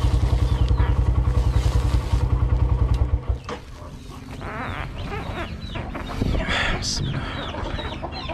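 A motorcycle engine idling with an even, rapid beat, switched off about three seconds in. Chickens cluck after it stops.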